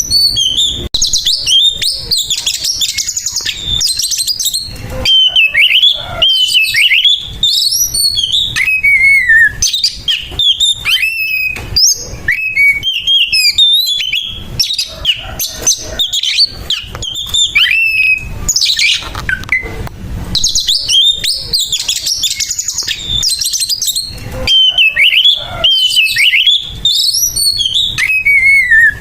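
Oriental magpie-robin (kacer) singing loudly and without pause: rapid, varied whistled phrases that glide up and down, mixed with harsh rasping notes. This is its aggressive 'fighting' song.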